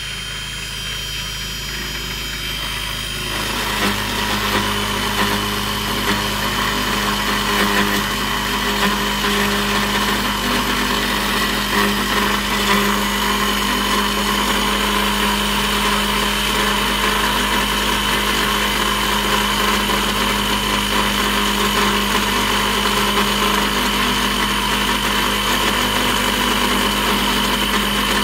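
Mini lathe running with a steady motor whine while a tool in the new quick-change tool post takes a turning cut on a small metal workpiece. About three seconds in the sound grows louder and busier, then holds steady.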